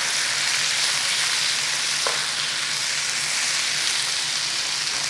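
Sliced bell peppers and onion sizzling steadily as they flash-fry in hot oil in a pan. A low, steady hum from the kitchen extractor hood runs underneath.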